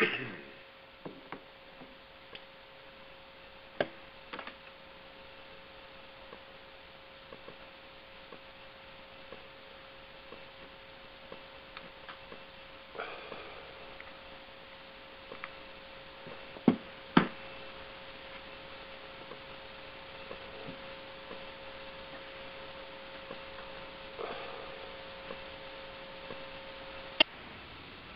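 Idle conference-call phone line: steady line hiss with a thin, even hum-like tone, broken by scattered sharp clicks. The tone cuts off with a click near the end.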